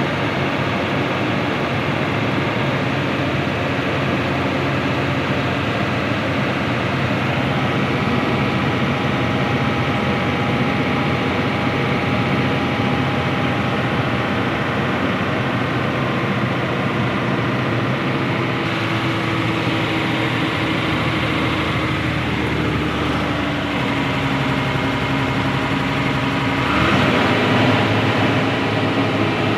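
Truck engine running at idle, a steady hum; its pitch drifts slowly down and then jumps up, a little louder, near the end.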